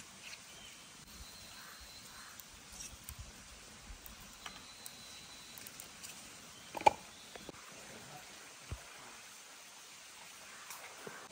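Faint steady background hiss with scattered light clicks and knocks, and one sharper knock about seven seconds in.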